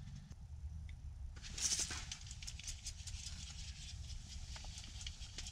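Spinning reel being cranked to bring in a hooked fish, giving a run of light irregular clicks, with a brief hiss about one and a half seconds in, over a low steady rumble.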